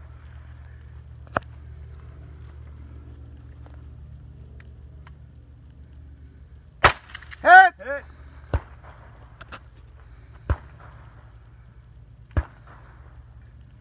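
Single shots from an HK MR556 semi-automatic 5.56 mm rifle: one shot, a pause of about five seconds, then shots about two seconds apart, the last at the very end. Just after the second shot comes a short voice sound, falling in pitch, which is the loudest thing heard.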